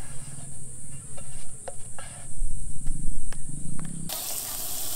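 Spatula clicking and scraping against a frying pan as toasted sandwiches are lifted onto a plate, over a steady high chirring of insects. About four seconds in, this cuts abruptly to a louder steady hiss of food sizzling in the hot pan.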